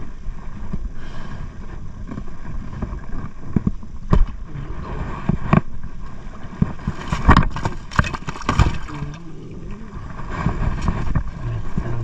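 Wind rumbling on the microphone, with several sharp knocks and scrapes, bunched in the middle, as a landed snakehead and fishing gear are handled in a small boat.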